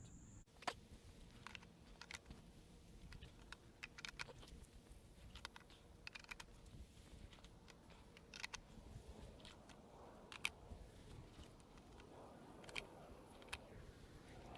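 Faint, scattered clicks and taps of plastic snap-lock brackets and stacking stakes being fitted into the joints of composite raised garden bed boards.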